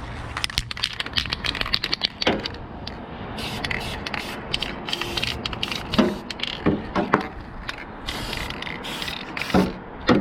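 Aerosol spray paint can being handled: a run of rapid rattling clicks in the first couple of seconds, like the mixing ball when the can is shaken, then a few separate louder knocks later on.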